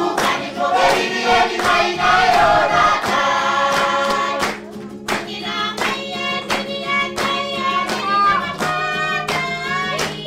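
Group of Banaban islanders, men and women, singing together with rhythmic hand clapping, about two claps a second. The singing drops away briefly about halfway through, then comes back in.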